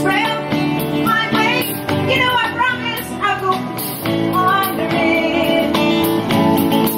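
Live band playing a song: a woman singing over strummed acoustic guitar, electric guitar, bass guitar and drums.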